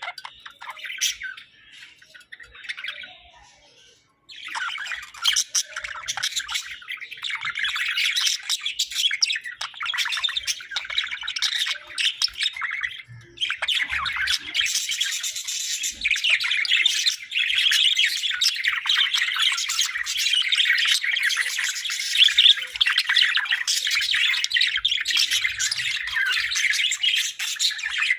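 A flock of Hagoromo budgerigars chattering, chirping and squawking in a busy, overlapping warble. It is thinner for the first few seconds, breaks off briefly at about four seconds and again around thirteen seconds, then goes on dense and continuous.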